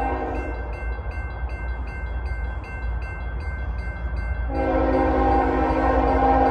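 Freight locomotive horn blowing for a grade crossing: one blast ends about half a second in, and a louder, long blast starts about four and a half seconds in. The crossing signal's bell rings about twice a second over a steady low rumble.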